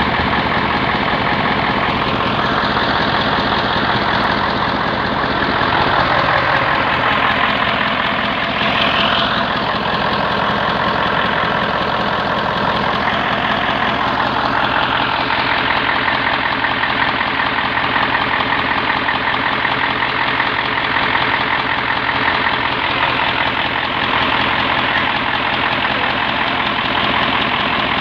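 Mitsubishi 8DC9 V8 diesel engine idling steadily, running freshly rebuilt after a general overhaul.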